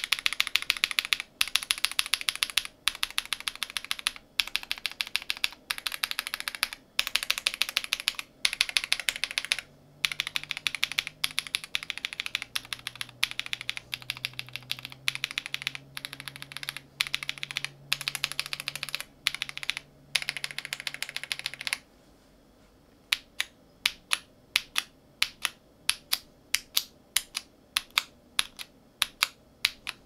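Typing sound test on a Zoom65 mechanical keyboard with a polycarbonate plate, case and plate foam and ABS keycaps, comparing BBN tactile switches with several other switches. Quick runs of keystrokes come in short bursts for about the first two-thirds, then slower single keypresses follow.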